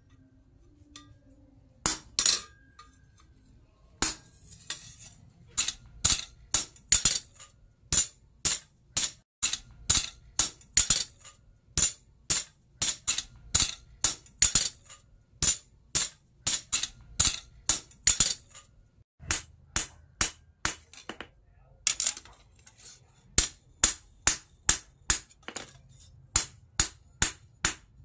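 Hand hammer striking hot steel cut from a tractor plough disc on a post anvil: sharp metallic clinks about two blows a second, beginning after a pause of about two seconds.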